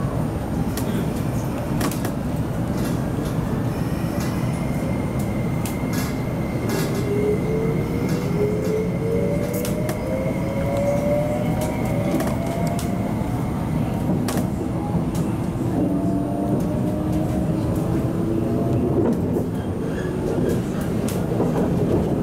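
Inside an MTR SP1900 (IKK) electric train on the move: a steady rumble of wheels on rail with scattered clicks. From about a third of the way in, the traction motors give a whine that climbs in pitch as the train picks up speed, over a thin high steady tone.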